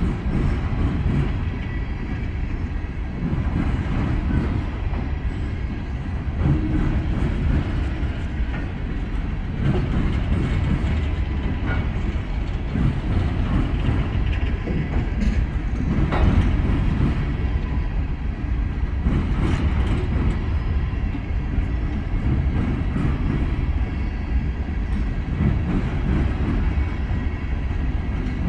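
Coal train's hopper cars rolling past: a steady low rumble of steel wheels on rail, with a few sharp clanks, the loudest about sixteen seconds in.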